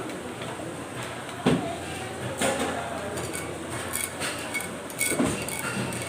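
Steady murmur of a busy food court, with a few sharp knocks and light clinks of dishes and utensils at the table.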